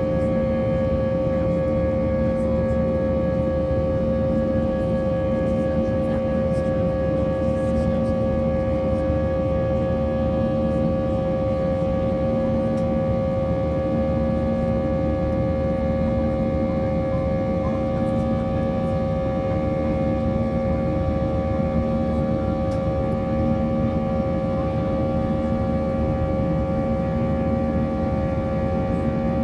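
Jet engines of an Airbus A320-family airliner heard inside the cabin during the climb after takeoff: a steady drone with one strong fixed tone over a rushing noise.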